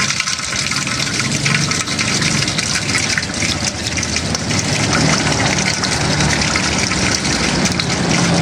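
Water running steadily from a tap, splashing over hands being scrubbed under it.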